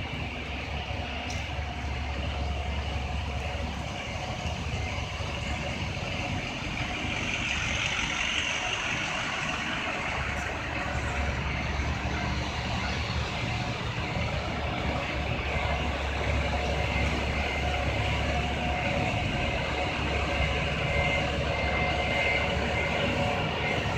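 Fire trucks' diesel engines running at idle: a steady low rumble that grows a little louder partway through, with a faint repeated beep near the end.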